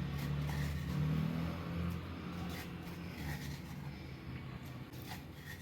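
Faint scraping and a few light clicks of a spoon on a vessel as coarsely crushed black pepper and cumin are tipped into a pot of water, over a low steady hum that slowly fades.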